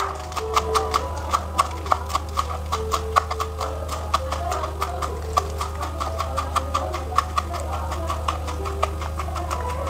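Kitchen knife chopping celery and spring onion on a plastic cutting board: quick, even taps of the blade on the board, about three to four a second.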